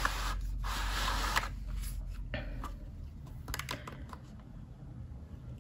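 Packaging rustling as items are lifted out of a box, loudest in the first second and a half, then quieter scattered clicks and taps of handling.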